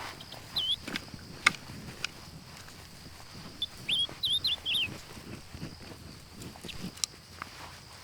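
A bird chirping in short, quick, bending notes, a single one early on and a run of several about halfway through, over a steady high insect drone. A few sharp clicks or snaps, the loudest about a second and a half in.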